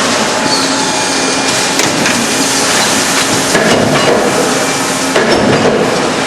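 Automated sheet-metal forming machinery on a refrigerator door production line running: a steady, dense mechanical clatter with scattered knocks and clanks.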